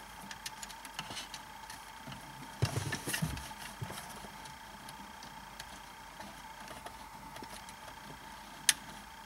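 Light handling noises of wiring being fitted to the back of a car radio: scattered small clicks, a brief burst of rustling and knocking about three seconds in, and one sharp click near the end, over a faint steady hum.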